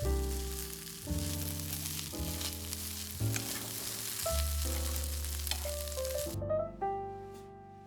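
Shredded potato and corned beef sizzling in olive oil in a frying pan, with background music over it. The sizzle cuts off suddenly about six seconds in, leaving only the music.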